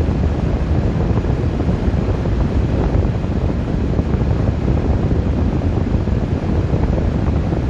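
Strong wind blowing steadily, a continuous low rumble of gusts buffeting the microphone.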